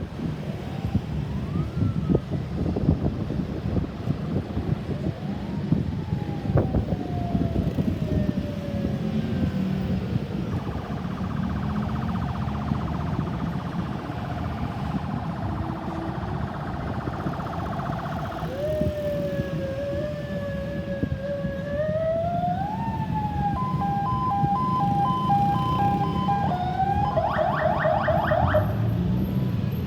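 Ambulance's electronic siren switching between tones: slow rising and falling wail sweeps, then a wavering tone, a two-note alternating pattern about two thirds in, and quick repeated rising sweeps near the end, over a steady low rumble.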